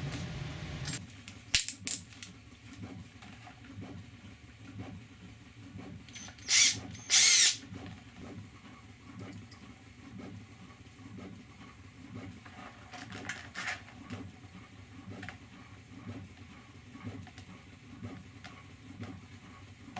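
Cordless drill running and stopping about a second in, after drilling a 3 mm hole through plastic. Then comes the handling of tools and small screws, with a few clicks and two loud, short rattles about a third of the way through, over a steady low hum.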